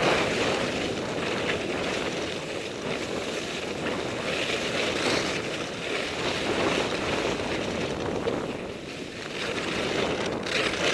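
Wind rushing over the microphone during a fast ski descent, with the skis scraping over packed snow. The sound swells and eases as the skier turns.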